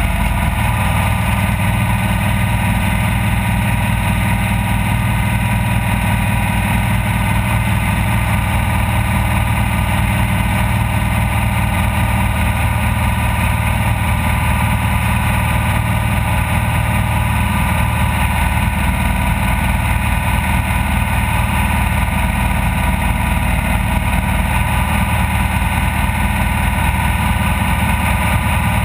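Off-road race vehicle's engine running loud and steady at an even pitch, with no change in revs, under a constant hiss.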